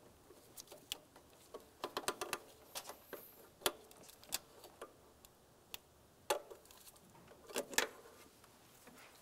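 Irregular light clicks and ticks from hose clamp pliers working a spring hose clamp on a small rubber coolant hose as it is re-secured on a thermostat housing, with quiet gaps between.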